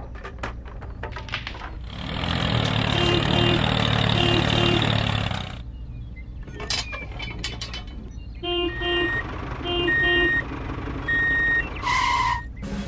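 Scattered clicks, then a loud rushing, splashing noise for about three and a half seconds, followed by a run of short electronic beeps from a toy truck, in pairs and singles, ending with a longer higher tone.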